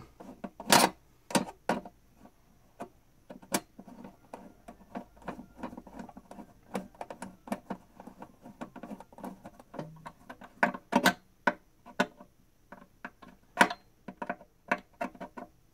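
Flathead screwdriver tightening a screw into a metal binding post that holds a drawer rail: a run of irregular small clicks and ticks as the screw is turned, a few of them sharper.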